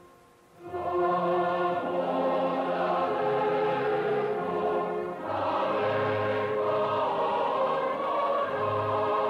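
Choral music: a choir singing long held chords, coming in after a brief hush at the start, with a short break in the phrase about five seconds in.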